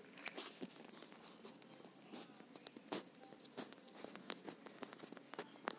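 Faint scattered taps and light rubbing of handwriting strokes on a phone touchscreen, with a couple of sharper ticks near the end.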